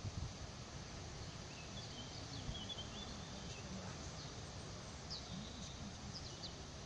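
Faint bird chirps, a few short calls in two clusters, over a steady outdoor background hiss, with a soft low bump at the very start.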